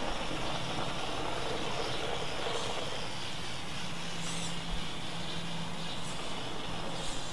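A 1/8-scale radio-controlled monster truck driving slowly on pavement: a steady whir from its motor and drivetrain, with tyre noise.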